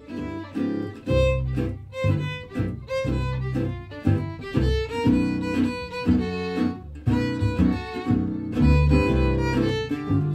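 Gypsy jazz trio playing: a bowed violin carries the melody over rhythmic strummed chords on an acoustic guitar and a plucked double bass.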